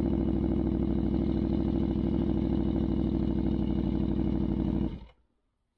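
Aprilia Tuono V4 1000's V4 engine idling steadily through an Arrow GP race exhaust, then cut off about five seconds in, leaving near silence.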